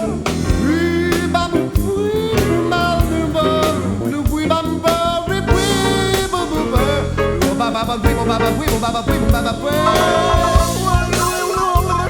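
Blues music: guitar over a steady drum beat, with a singing voice.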